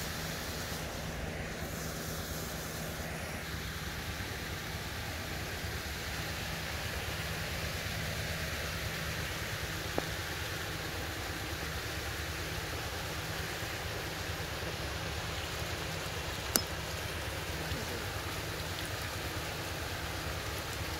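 Shrimp-pond paddlewheel aerators running: a steady motor hum under a constant wash of churning water. A sharp click comes about ten seconds in, and a louder one about two-thirds of the way through.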